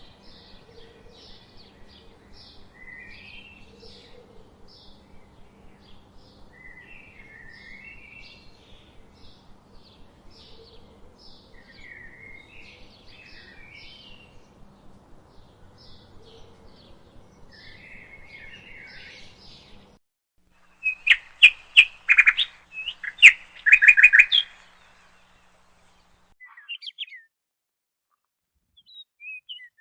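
Budgerigars chirping and chattering, quiet at first over a low steady hum. About two-thirds of the way in the hum stops and a few seconds of loud, sharp, rapid chirps follow, then a few brief faint chirps near the end.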